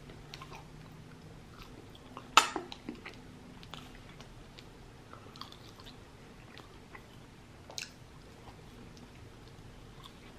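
Close-up mouth sounds of chewing french fries, with small wet clicks and one sharp loud click about two and a half seconds in and a smaller one near eight seconds.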